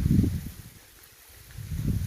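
Wind buffeting the microphone in gusts, a low irregular rumble that dies away for about a second in the middle, then picks up again.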